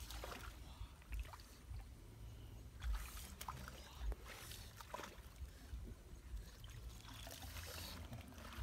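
Footsteps wading through shallow, muddy stream water, each step a soft splash or slosh, coming irregularly about once a second.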